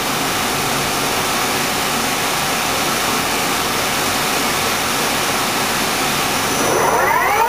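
Dainichi MG75 CNC lathe running with a steady mechanical hum after a gear change into the high range. Near the end the spindle speeds up with a rising whine toward 700 RPM.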